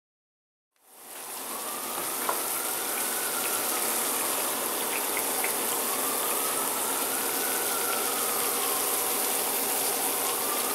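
Hot oil sizzling steadily as yuca fritters fry in a cast-iron skillet, starting about a second in, with a few light clicks of a fork against the pan.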